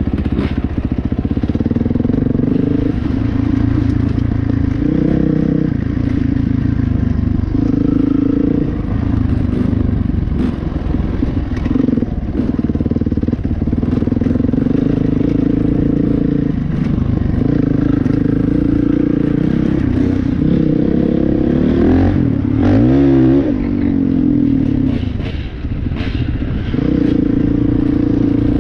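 Dirt bike engine running hard on a trail, its pitch climbing and dropping every few seconds with the throttle and gear changes. Scattered knocks and rattles come from the bike over rough ground.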